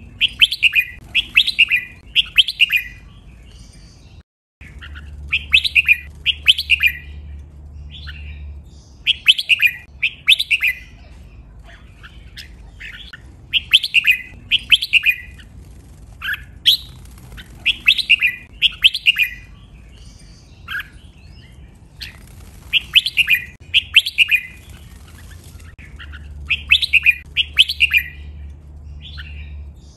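Red-whiskered bulbul singing: bright, clear phrases of two or three quick whistled notes, repeated every few seconds.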